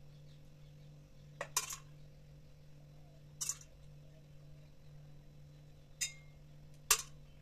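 Several short, sharp clinks of small hard objects against dishes, two close together about a second and a half in, then three more spread out, over a steady low hum.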